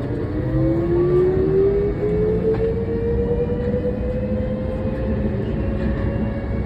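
Inside a driverless airport shuttle train pulling away: the electric motors give a whine that rises steadily in pitch as the train gathers speed, then levels off near the end. A steady rumble from the running gear lies underneath.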